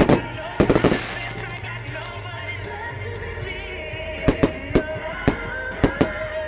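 Fireworks going off over background music: a loud bang right at the start and a tight cluster of bangs just after, then a string of sharp separate pops from about four seconds in.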